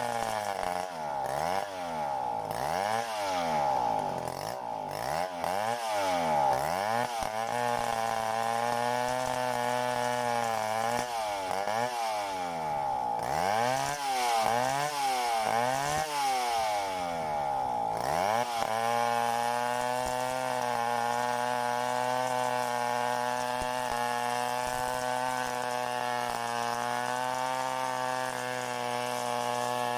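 Stihl 070 two-stroke chainsaw running continuously. Its pitch wavers up and down for roughly the first two-thirds, then holds steady.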